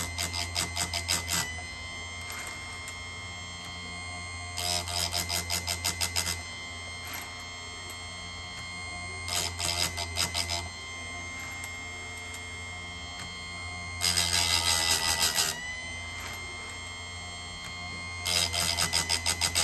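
Chicago Electric bench chain saw sharpener: the grinding wheel's motor runs with a steady hum and thin high whine, and about every four to five seconds the wheel is lowered onto a cutter tooth for a rapid, chattering grind of one to two seconds, five passes in all. Each pass sharpens one cutter of the saw chain, with pauses while the chain is advanced to the next tooth to be ground.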